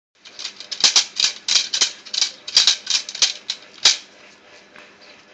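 Rapid scraping and scuffling on floor tiles as a German Shepherd puppy tugs at a rag on a stick: several short rasps a second with a few sharp taps. It dies down about four seconds in.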